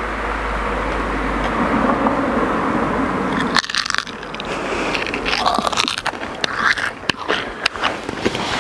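A steady rumbling noise, then from about three and a half seconds in, loud crunching bites and chewing in quick irregular strokes: deliberately noisy, annoying eating.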